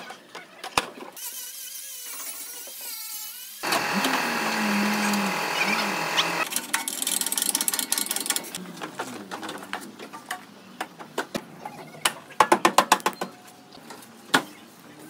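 Body-shop repair on a crashed car: a loud power tool runs for about five seconds starting a few seconds in, and near the end comes a quick run of sharp metal taps and clicks.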